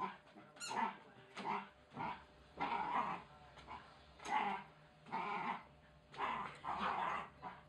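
Wire Fox Terrier puppy growling in about ten short bursts while playing with a toy.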